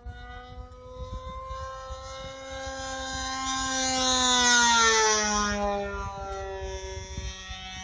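OS .55AX two-stroke glow engine on an RC plane, spinning a 13x6 prop through a Pitts-style muffler, flying past at speed. Its high, steady whine grows louder, peaks about four to five seconds in, and drops in pitch as the plane passes.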